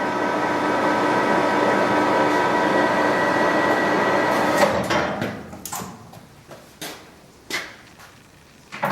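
1986 Victor 1860E gearhead lathe spindle running at 355 RPM with a steady gear whine, then shut off about four and a half seconds in and spinning down. A few clunks follow.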